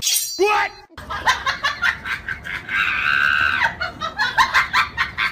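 People laughing hard in choppy bursts, with a shrill, high-pitched cry lasting about a second, about three seconds in.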